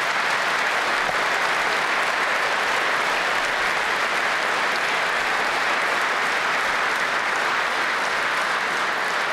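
A large audience applauding steadily in a big hall, dense even clapping that holds at one level.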